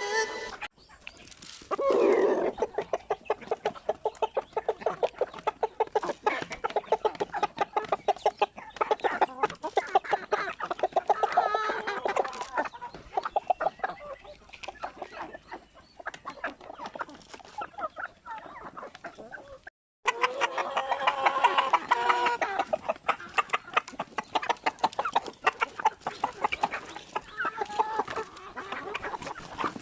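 A flock of free-range chickens clucking, with a steady patter of quick taps running through, typical of birds pecking at their feed. The sound drops out suddenly about two-thirds of the way through and picks up again at once.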